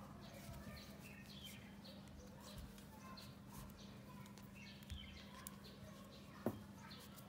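Faint bird chirps in the background over a low steady hum, with a few soft clicks about five and six and a half seconds in.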